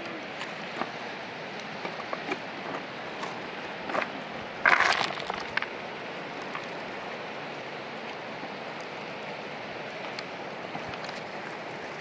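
River water rushing steadily, with scattered small clicks and one short, louder burst about five seconds in.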